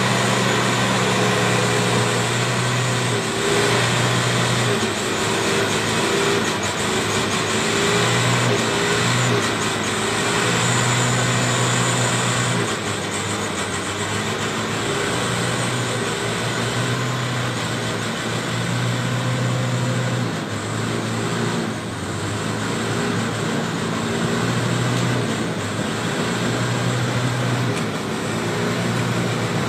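Heavy truck's diesel engine running under load as the truck crawls up a muddy slope, a steady low engine note that drops away briefly a few times.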